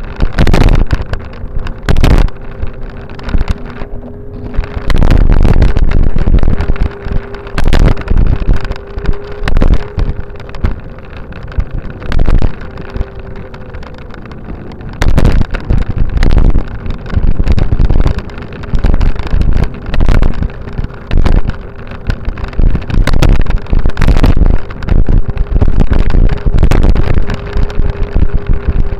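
Wind buffeting the microphone of a camera moving along a paved path, in repeated loud gusts. Under them runs a steady rumble with a faint steady hum.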